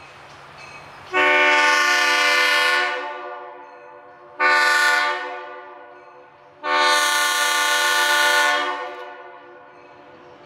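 Diesel locomotive air horn sounding a chord in three blasts, long, short, long, as the train approaches a road grade crossing: the tail of the standard crossing warning.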